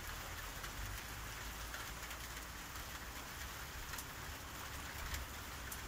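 Steady rain falling, with a few faint clicks as a ladle stirs the cast-iron pot.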